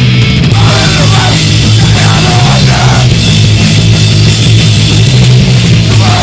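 Live punk band playing loud: distorted electric guitar and bass over a drum kit.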